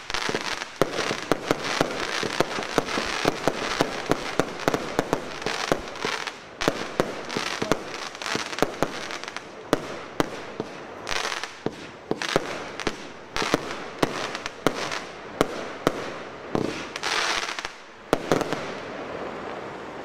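Evolution Fireworks Crackling Purple, a 36-shot 25 mm firework cake, firing shot after shot. Sharp bangs of launches and bursting shells come at an uneven pace, and the sizzling crackle of crackling stars follows many of the bursts. The last bang comes a little after eighteen seconds, and the crackle then fades out.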